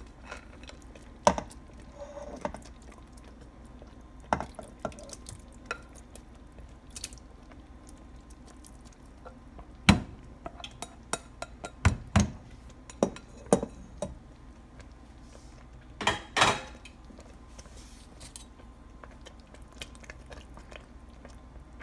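Cookware clinking and knocking as blackberries are scraped from a glass bowl into a stainless steel pot with a plastic slotted spoon and a glass pot lid is handled. The sharp knocks are scattered, with the loudest around ten and twelve seconds in and a short rattle a little after sixteen seconds.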